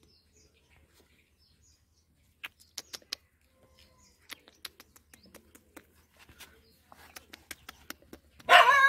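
Faint bird chirps and scattered soft clicks, then, about eight and a half seconds in, a dog's loud, high yelping cry whose pitch wavers up and down.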